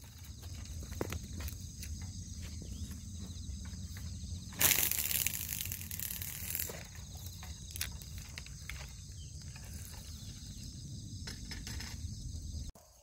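Outdoor ambience: wind rumbling on the microphone under a steady high trilling of insects. A loud rustling burst of about two seconds comes in just under five seconds in.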